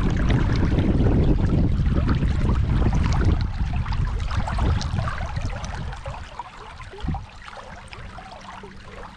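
Rushing water of the Dunajec river, a loud low rushing rumble that eases off after about three seconds to a much quieter hiss, with a single short knock about seven seconds in.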